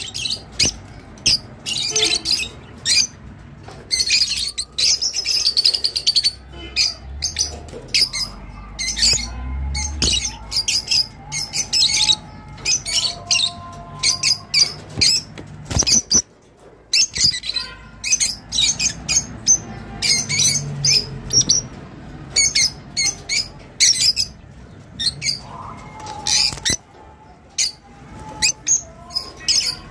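Peach-faced lovebirds chirping in a rapid, shrill chatter of short, sharp calls, with a brief lull about halfway through.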